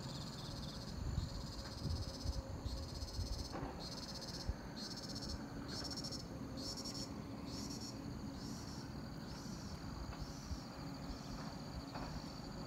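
Insects chirping in the hillside vegetation: a steady high-pitched trill with a pulsing chirp that repeats about every half second and grows weaker near the end. A faint low rumble runs beneath it.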